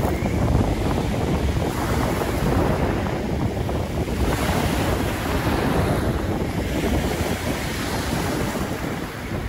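Waves breaking and washing over a shingle beach, with wind buffeting the microphone in a steady low rumble.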